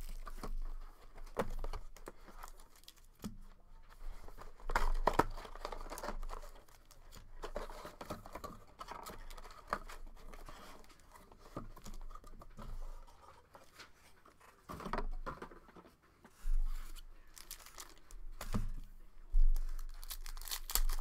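A trading-card hobby box being opened and a foil card pack torn open and crinkled by hand, in irregular bursts of tearing and rustling.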